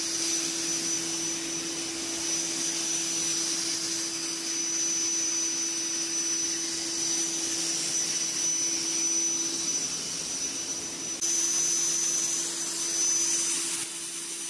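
Insecticide fogging machine running steadily while spraying mist: a blower-like hiss with a steady low hum and a high whine.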